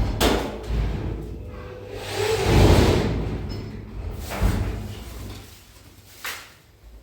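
A sharp knock, then a long scraping slide about two seconds in, followed by a few more thumps.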